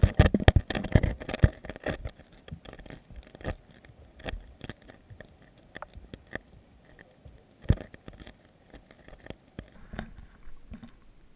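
Handling noise on an action camera: knocks, taps and scraping against the camera housing as it is moved about, thickest in the first two seconds, with one hard knock about eight seconds in.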